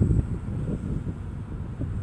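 Wind buffeting the microphone in uneven gusts, a low rumble that eases a little toward the end.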